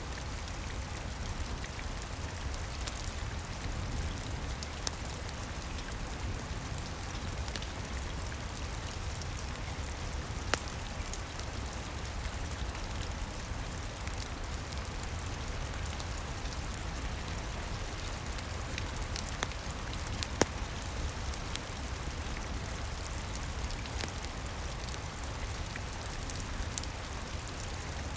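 Steady rain falling, with a low rumble underneath and the occasional sharp crackle or pop of a wood fire.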